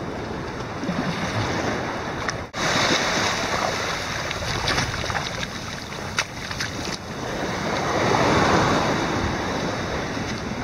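Steady wind and sea noise: waves washing, with wind buffeting the microphone. A brief dropout about two and a half seconds in, and the noise swells louder around eight seconds in.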